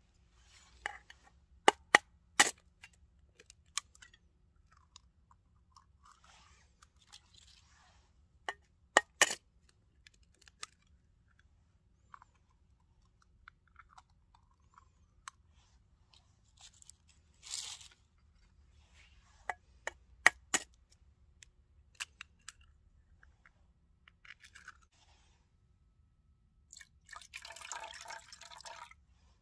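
Sharp taps and clicks of eggs being handled from a plastic egg carrier and cracked on the rim of a small stainless steel cup, with a short crackle of shell breaking partway through. Near the end, liquid is poured from a bottle into the cup for about two seconds.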